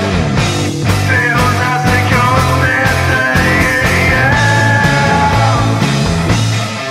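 Rock music with a steady drum beat, a bass line and a held lead melody.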